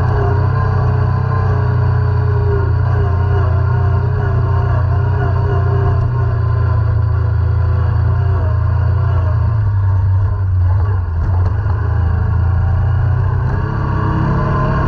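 ATV (quad) engine running under way on a dirt trail, a steady deep drone that eases off slightly near the end.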